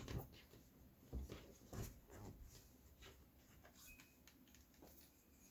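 Near silence with a few faint handling clicks and taps, about a second, two seconds and five seconds in.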